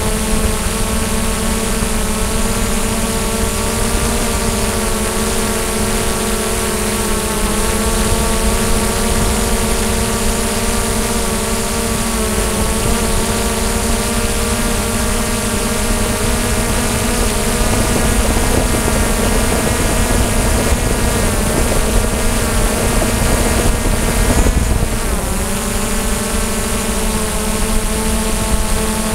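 DJI Mavic drone's motors and propellers whining steadily, a stack of even tones over a hiss, dipping briefly in pitch near the end as the motors change speed and then settling back.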